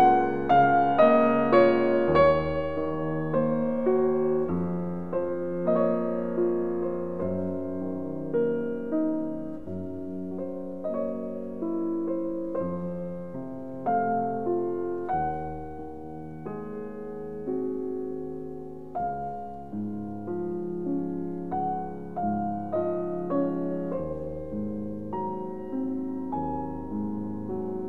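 Background piano music: single notes and chords struck and left to ring out, a new note about every second.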